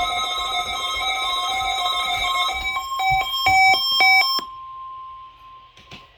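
NOAA Weather Radio 1050 Hz warning alarm tone playing through weather radio receivers. Over it, a receiver's rapidly pulsing alert beeps at several pitches break into a run of short stepped beeps and stop about four seconds in. The steady alarm tone carries on alone, fainter, until about six seconds in.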